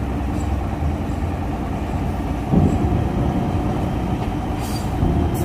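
Diesel coach bus engine running low and steady as the bus crawls slowly up a steel ferry loading ramp, with a sudden louder thump about halfway through.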